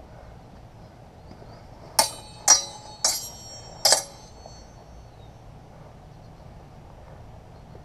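Steel sparring swords clashing blade on blade: four sharp strikes within about two seconds, each ringing briefly.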